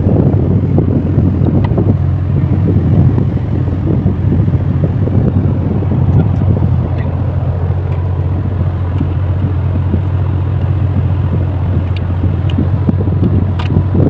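Wind buffeting the microphone over a steady low rumble. A few faint clicks near the end as the radar scanner unit is handled.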